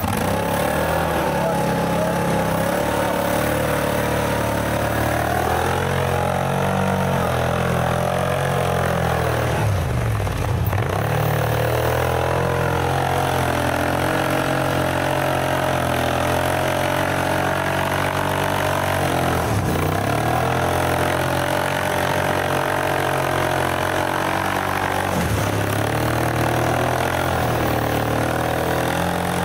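All-terrain vehicle's engine running steadily under load, its pitch sagging briefly and picking up again three times.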